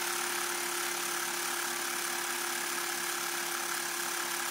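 Budget portable air compressor running steadily, supplying air to a Stuart S50 model steam engine that is turning over on compressed air.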